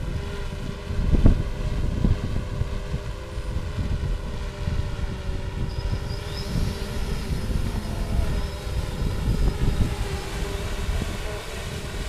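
Quadcopter drone propellers whining steadily in hover, buffeted by strong gusts of wind on the microphone, the loudest gust about a second in. A fainter, higher whine joins about halfway through.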